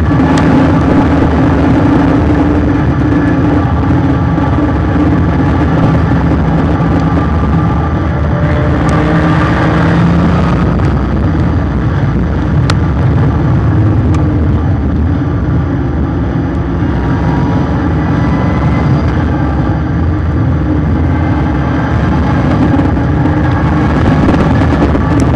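Car running at speed on an oval track, picked up by a bumper-mounted camera: a steady, loud mix of engine and road noise.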